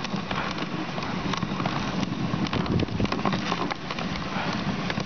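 Dog sled running along a snow trail: a steady scraping hiss of the runners on packed snow, with many small crackles and knocks from the sled.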